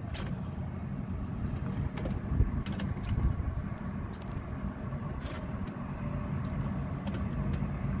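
Steady low outdoor rumble, with a few faint light clicks as thermostat wire ends and meter leads are handled.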